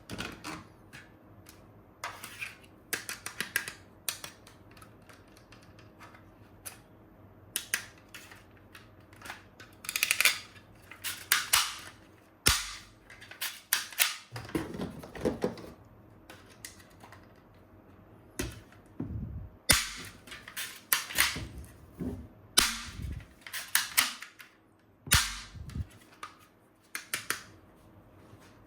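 Plastic toy gun parts clicking and clacking as they are handled and snapped together, in irregular sharp clicks with some duller knocks.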